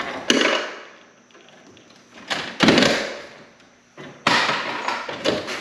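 Knocks and thuds of tools and parts being handled while working on an electrical panel. The loudest is a heavy thud about two and a half seconds in, followed by a run of clattering near the end.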